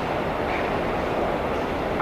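Elevated subway train rumbling along steel elevated tracks, a steady, even noise mixed with city traffic, heard through a window opened a crack.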